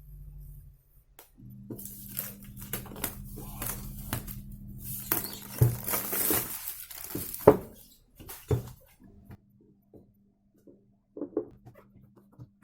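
Packaging being handled by hand: crinkling and rustling for a few seconds, then several sharp knocks and taps as pieces are set down, and a few light clicks near the end, over a low steady hum.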